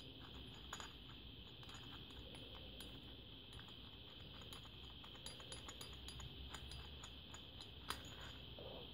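Faint, light metallic clicks and ticks from the aluminium housing of an electro-hydraulic power steering pump being handled as its cap is worked off, with one sharper click about eight seconds in, over a steady faint hiss.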